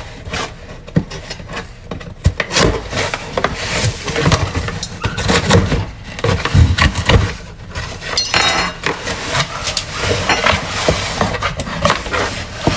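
A cardboard shipping box being unpacked by hand: irregular knocks, taps and light clinks as the box and its contents are handled, with a brief crinkling rattle about eight seconds in.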